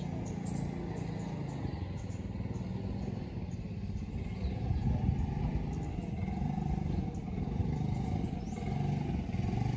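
Small motor scooter engine running at low speed, the throttle easing up and down as the rider steers slowly round the test course, a little louder about halfway through.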